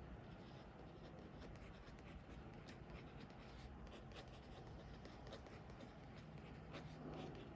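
Faint scratching of a pen drawing on paper, in short irregular strokes.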